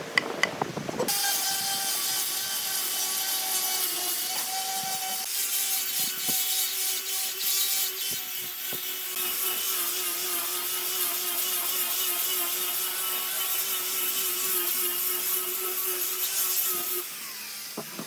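Electric power tool running against wood, a steady motor whine over a rasping hiss; it starts about a second in and stops near the end.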